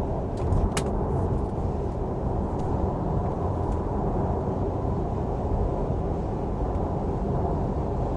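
Road and wind noise inside the cabin of a Tesla Model 3 Performance fitted with roof racks, picking up speed on the highway: a steady rush. A single sharp click about a second in.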